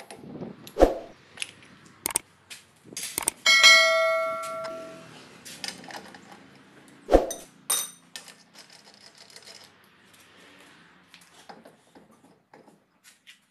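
Hammer blows driving a screwdriver against a car's rear brake drum hub: sharp metal clanks, one of which, about three and a half seconds in, rings on for over a second. Two more blows come near seven seconds, then lighter metal clicks as the hub is worked by hand.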